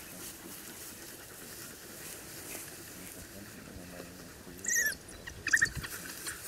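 African wild dogs at an impala kill: a quiet stretch, then two short, high-pitched squealing twitters with a falling pitch, about four and a half and five and a half seconds in, as the pack squabbles over the carcass.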